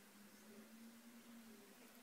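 Near silence: room tone with faint hiss and a low steady hum.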